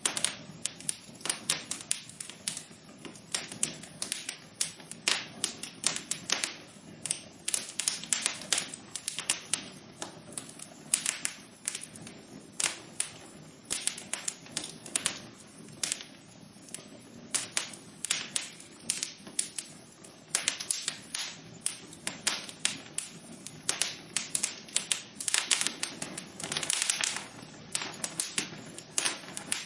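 Wood fire in a fireplace crackling: a steady run of irregular sharp pops and snaps, several a second, over a soft low rush of the burning.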